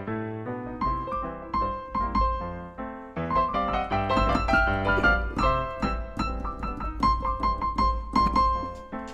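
Piano music: a steady run of struck notes over a stepping bass line, dropping quieter about three seconds in, then picking up again.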